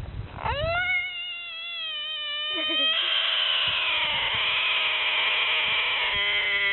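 An animal's long, drawn-out howl: it rises in pitch at the start, then holds one note for several seconds. A second, lower howl joins near the end.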